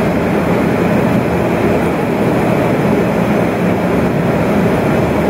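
Steady rushing noise with no breaks or changes, mostly low and middle in pitch.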